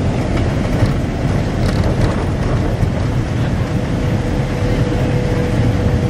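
Safari bus on the move, heard from inside the cabin: a steady engine and road rumble, with a faint steady whine joining about halfway through.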